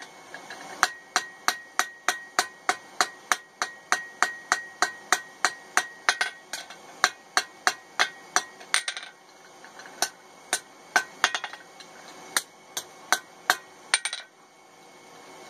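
Hand hammer peening down the quarter-inch rivet at the joint of a pair of forged tongs on the anvil: quick, even steel-on-steel blows about three a second with a light ring. After about nine seconds the blows come slower and more spaced out, and they stop shortly before the end.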